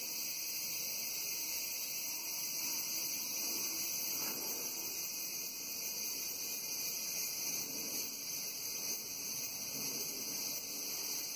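Chorus of cicadas buzzing steadily, a continuous high-pitched drone without pauses.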